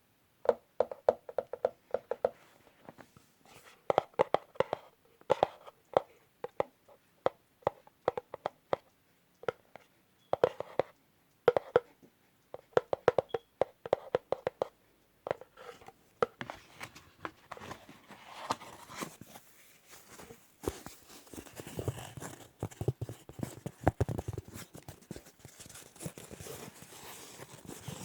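Fingernails tapping in quick bursts on a small jewelry box, each cluster of taps ringing briefly. About halfway through the tapping gives way to a denser rustling and scratching.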